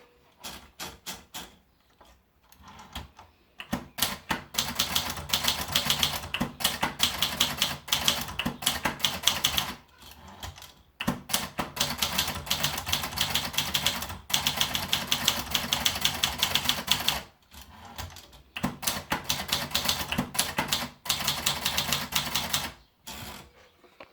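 Triumph Tippa portable manual typewriter being typed on: fast runs of keystrokes with short pauses between them, starting with a few single strikes.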